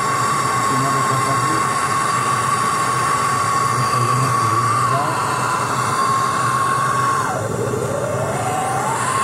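MAPP gas hand torch burning: a steady hiss with a whistling tone, heating copper refrigerator tubing for soldering. The whistle dips briefly about five seconds in, then drops sharply and slides back up near the end as the torch is moved.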